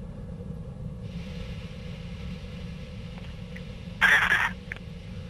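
Launch-control radio loop in a pause between callouts: a steady low rumble and hiss, with a short burst of static about four seconds in lasting about half a second.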